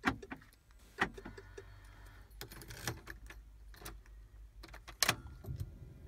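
Sharp thumps and pops from the car's speakers as a VW RNS 510 radio/nav unit keeps rebooting in a startup loop. There is one at the start, one about a second in, a cluster around two and a half to three seconds, and a strong one at about five seconds, over a low hum. This is the failing-unit symptom that the uploader traces to a PIC16 chip needing re-soldering.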